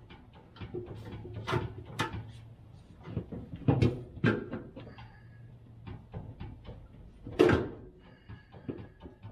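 Transmission jack raising a van's fuel tank: a steady run of quick clicks, about four a second, with a few louder clunks and knocks as the tank goes up, the loudest about seven and a half seconds in.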